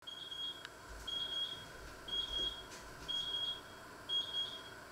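An electronic timer beeping five times, about once a second, each beep high and a little over half a second long, then stopping.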